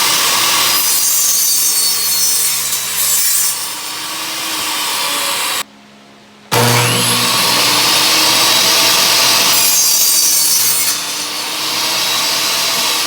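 Ryobi table saw running and cutting through a wooden board, loud throughout. The sound eases briefly between cuts and breaks off completely for under a second about six seconds in before the saw is heard again.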